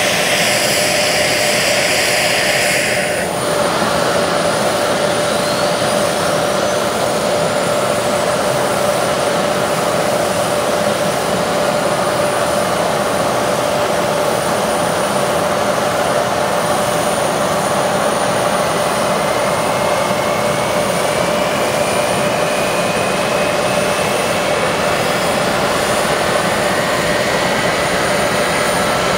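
F-4EJ Phantom II's General Electric J79 turbojets during ground start: a loud, steady jet whine and rush of air, with a harsher hiss that cuts off about three seconds in. From a little past halfway, a second whine slowly rises in pitch as an engine spools up.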